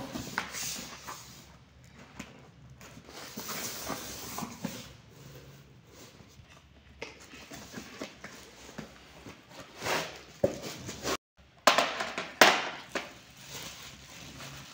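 Cardboard box and packaging being handled and opened, with irregular rustling and scraping bursts. The loudest come about ten and twelve seconds in.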